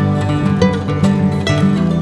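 Background music led by a plucked acoustic guitar, with notes struck in a steady run.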